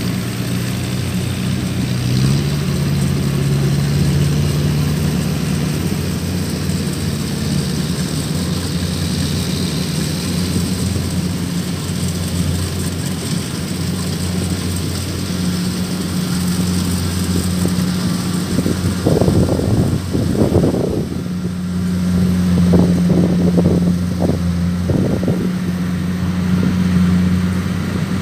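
Kubota DC-105X combine harvester's diesel engine running steadily while harvesting, a low hum whose pitch shifts a little a couple of seconds in and again around midway. Uneven rushing noise rides over it in the second half.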